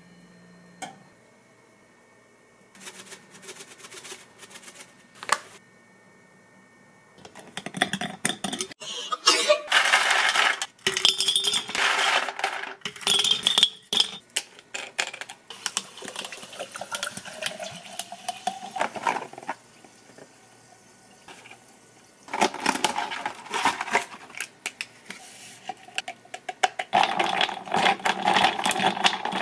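Ice cubes clattering into a plastic bottle, then liquid poured in over the ice with a pitch that rises as it fills. Ice rattles in the bottle as the drink is stirred with a straw.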